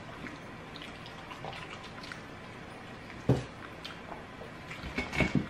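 Mouth and hand sounds of people eating fried chicken wings: scattered wet smacks and small clicks, with one sharp thump about three seconds in and a burst of smacks near the end.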